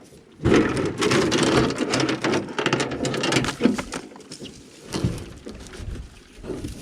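Water splashing and rushing against a small boat. The splashing is loud from about half a second in to about four seconds, then dies down to a softer patter.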